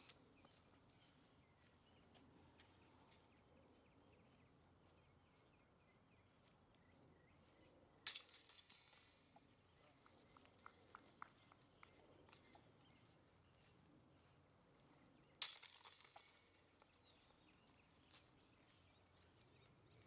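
Two disc golf putts crashing into the metal chains of a basket, about seven seconds apart: each a sudden metallic clash with a jingling rattle that dies away over a second or so, followed by a few small clinks as the chains settle.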